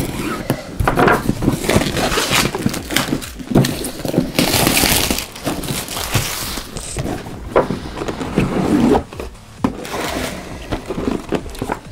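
Clear plastic shrink wrap being torn off a board-game box and crumpled, a dense crinkling with many small clicks and a louder, steadier rustle a little past the middle.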